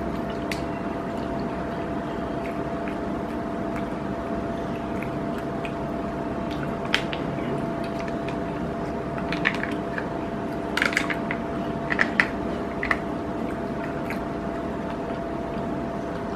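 Wet sucking and squishing as juice and jelly are sucked out of a plastic juice-filled jelly cup, with several short sharp slurps in the second half. A steady background hum runs underneath.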